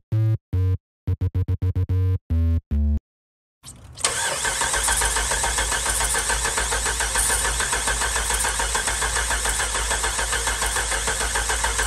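Short synth music stabs, then about four seconds in a 5.7 Hemi V8 with its valve cover off starts and runs steadily, with a faint regular pulse. The engine is misfiring on cylinder 5, which the mechanic puts down to a collapsed lifter.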